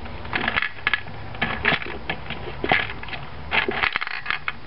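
A small Dubble Bubble gumball machine's crank being turned, its metal mechanism clicking and the gumballs rattling in about four short bursts as it dispenses a gumball.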